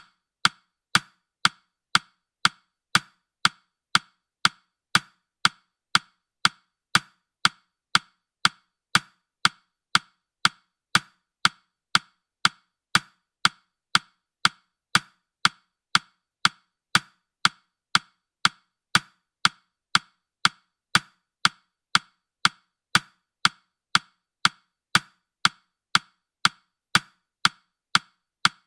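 Countdown timer's ticking sound effect: sharp, woody ticks, evenly spaced at about two a second.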